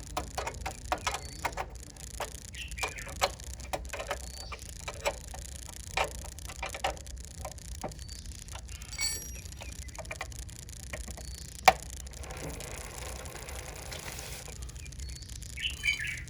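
Irregular clicks and light taps, with one sharper, louder click about twelve seconds in, followed by a couple of seconds of soft rustling noise.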